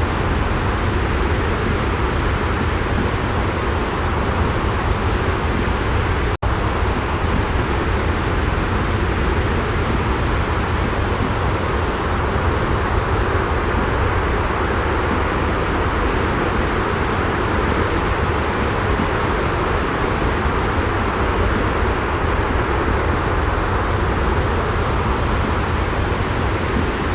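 Steady jet white noise: an even, unbroken rumble with a hiss over it, like an airliner cabin in flight. It cuts out for an instant about six seconds in.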